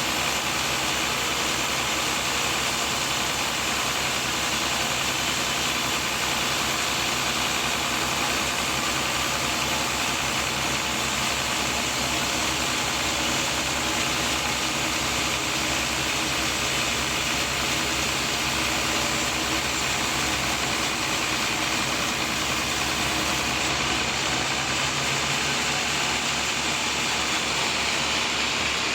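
Sawmill machinery running steadily while sawing teak, an even, unbroken machine drone with a broad hiss; the highest part of the hiss thins out somewhat near the end.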